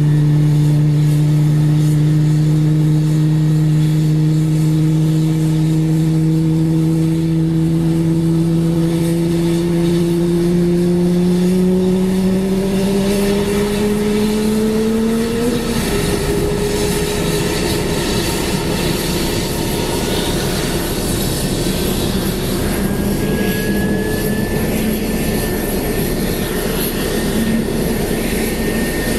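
Airbus A320-family jet airliner on the apron: a steady low hum slowly rises in pitch and stops suddenly about halfway. A rougher engine noise follows, and in the last third a high whine climbs gradually in pitch as a jet engine spools up.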